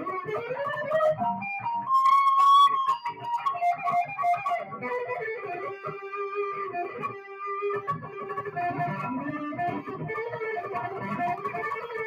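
Electric guitar played live through an amplifier, a melodic lead line with pitch bends and a loud held note about two seconds in.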